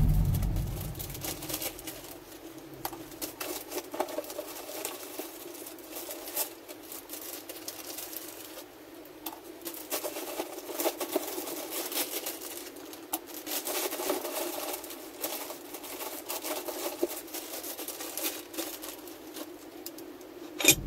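Light clicks, taps and plastic-bag crinkling as small carburettor parts are handled and fitted at a workbench, over a steady low hum. A low rumble fades out in the first couple of seconds, and a sharper knock comes just before the end.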